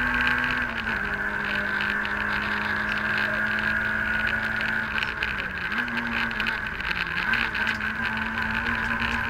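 Citroën AX GTi Group N rally car's 1.4-litre four-cylinder engine running hard at high revs, heard from inside the cabin, with a steady high whine alongside. The engine note drops slightly about a second in and dips briefly twice more, around five and a half and seven seconds in.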